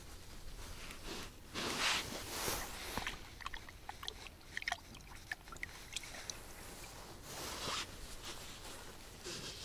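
Fishing tackle being handled close to the microphone: two short rustles, about 2 s and 7.5 s in, with a run of small light clicks between them.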